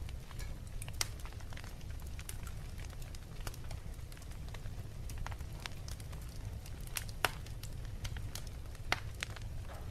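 Wood fire crackling in a fireplace: scattered sharp pops over a low steady rumble, with the loudest pops about seven and nine seconds in.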